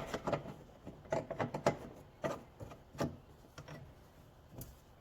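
Tools and metal parts being handled under a vehicle: a string of irregular clicks, knocks and light scrapes, about one or two a second.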